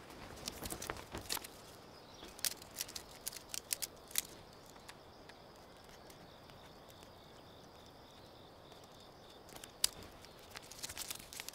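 Quiet outdoor ambience: scattered small clicks and scuffs in the first few seconds and again near the end, over a faint, steady pulsing insect trill in the middle.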